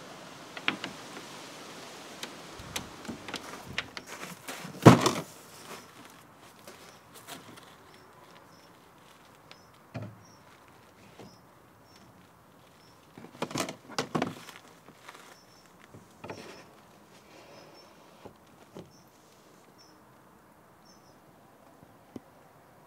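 Hard plastic knocks and clatter from handling pond filter parts, tubing and black plastic pipe fittings, with the sharpest knock about five seconds in and a quick run of knocks around fourteen seconds. Faint short bird chirps repeat in the background through the middle of the stretch.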